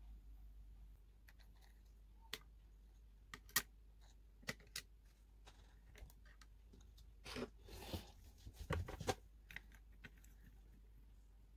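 Scattered light clicks and taps of small plastic dishes handled and set down on a miniature table. A brief rustle and a run of quick clicks come about two-thirds of the way through.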